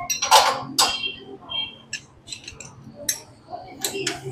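Metal hand tools clinking and tapping against motorcycle parts as they are being unbolted: a scatter of short, sharp clicks and knocks, some in quick little clusters, over a faint steady hum.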